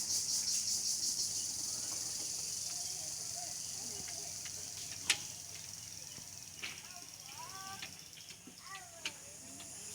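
Domestic pigeons at home: a few faint, short wavering calls in the second half and several sharp clicks, the loudest about halfway through, over a steady high-pitched hiss that slowly fades.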